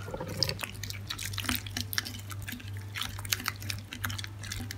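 Sticky clear-glue slime being mixed by hand in a small plastic cup after borax activator has gone in: irregular wet squelches and sticky clicks.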